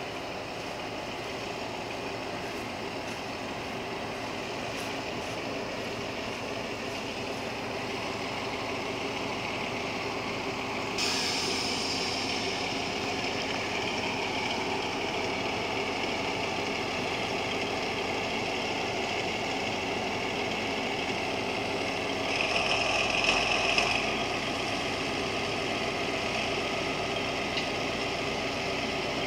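Diesel engine of a VR Class Dr16 locomotive running steadily, slowly growing louder. A higher hiss joins about eleven seconds in, and a louder hissing burst lasts about a second and a half some 23 seconds in.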